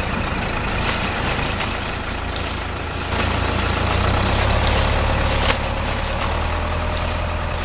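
A vehicle engine running steadily with a low, even hum, getting a little louder about three seconds in, with a single sharp click near the end.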